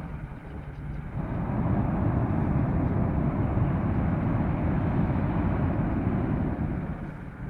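Hot-air airships flying: a steady rushing sound that swells about a second in and eases off near the end.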